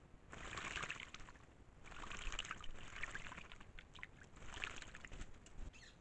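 Birds splashing while bathing in a shallow puddle, beating the water with their wings in three bursts of splashing, each a second or two long.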